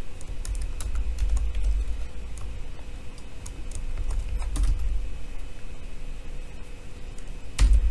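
Typing on a computer keyboard: irregular keystroke clicks as a short name is typed, with a louder dull thump near the end.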